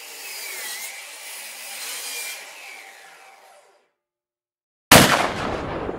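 Sound effects for an animated logo: a steady hissing whoosh with a faint dipping whistle that fades out after about three and a half seconds, a second of dead silence, then a sudden loud boom that dies away.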